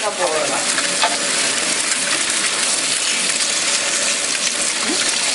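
Tabletop wet grinder running: its stone roller turns in the spinning steel drum, grinding chutney with a steady, even grinding noise.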